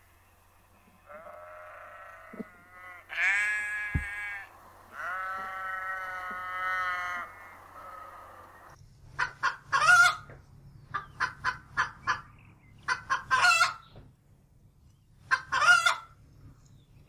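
Chickens: a rooster crowing in long drawn-out calls, then from about halfway a run of short, sharp clucks in quick clusters.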